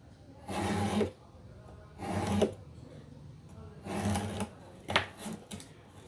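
Knife blade drawn along a ruler to trim a thin sheet down to size, three scraping strokes about a second and a half apart, then a sharp click.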